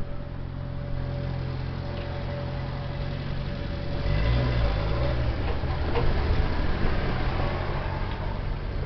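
Road vehicle engines idling steadily. About four seconds in, louder engine and tyre noise starts as traffic moves off, with a few sharp clicks.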